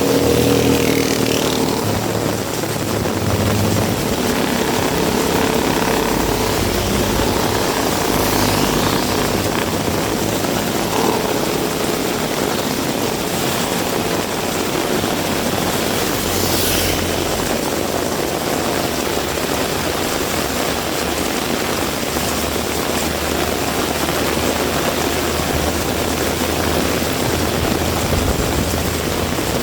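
Heavy rain falling steadily, a dense even rush of water, with a faint engine hum underneath in the first several seconds.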